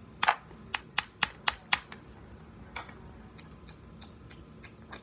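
Sharp clicks close to the microphone: a quick run of about six in under two seconds, then a few fainter ticks spread out later.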